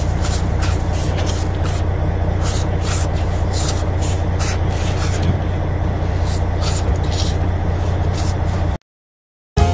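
A fishing boat's engine running with a steady low drone, overlaid by repeated short hisses about once or twice a second. The sound cuts off suddenly about nine seconds in.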